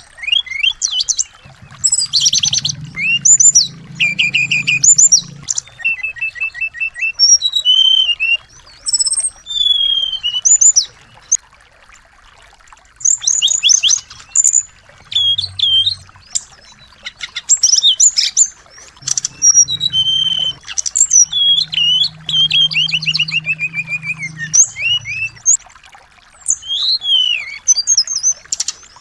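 Small songbirds singing a varied run of rapid high chirps, trills and whistled notes, with short pauses between phrases.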